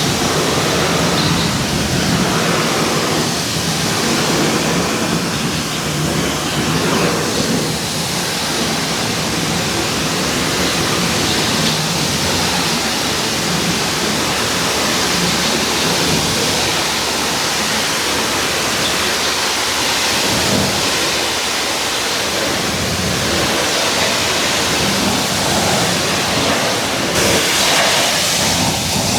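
High-pressure washer spraying water steadily, a loud, even hiss.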